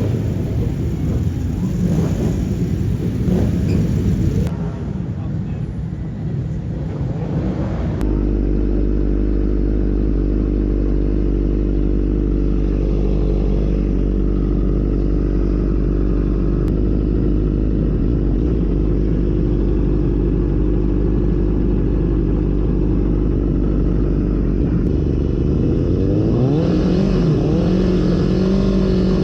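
Motorcycle engine running at a steady pitch for a long stretch, then rising in pitch as it revs up near the end. This follows about eight seconds of mixed engine rumble.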